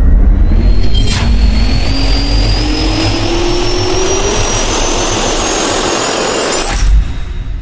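Jet-engine turbine sound effect: a turbine spooling up with a slowly rising whine over a deep rumble, with a whoosh about a second in. It cuts off abruptly with a short hit near the end.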